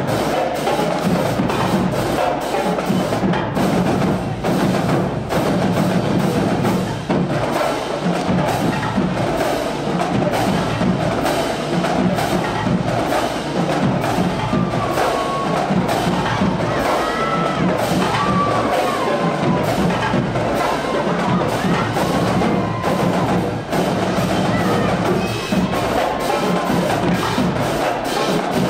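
Live drumline of snare and bass drums playing a fast, steady cadence of stick strikes.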